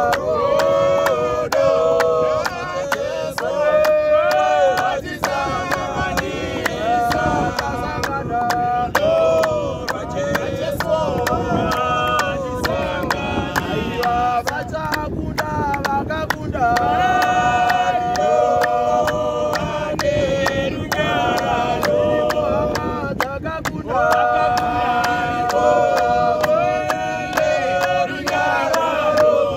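A small group of men singing a cappella in harmony, a song in Shona, to a steady beat of hand claps.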